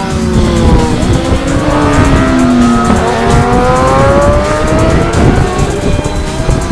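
Racing sidecar outfits' engines at high revs as they corner past. The engine note falls over the first few seconds as they slow into the bend, then a rising note as they accelerate out.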